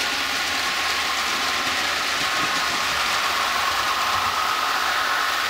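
Model trains running on the layout: a steady whir of the locomotive motors with the hiss of wheels rolling on the rails.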